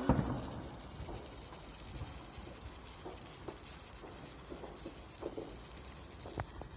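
Faint fizzing crackle of a burning hand-held sparkler, with a low rumble under it.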